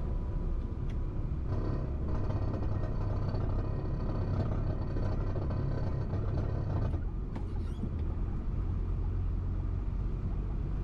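Truck driving on an expressway: steady low engine and road rumble. A whine with many overtones joins about a second and a half in and stops about seven seconds in.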